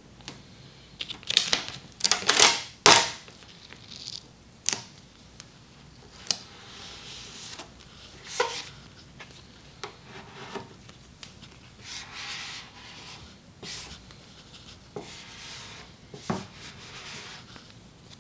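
Vinyl livery stripe being worked on a car's body during a wet install: a series of short rasping rubs and scrapes, loudest about one to three seconds in, then softer and more spaced out.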